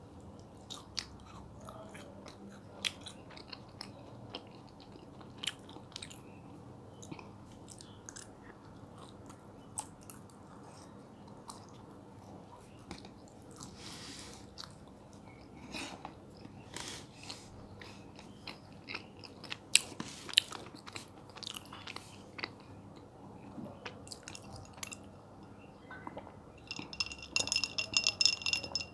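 Close-up chewing of soft mango jelly, with scattered wet mouth clicks. Near the end, a quick run of slurping sips through a drinking straw, with a thin whistling tone.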